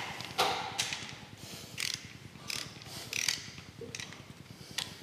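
Socket ratchet clicking in short bursts as its handle is swung back and forth, running connecting-rod cap nuts down snug before they are torqued.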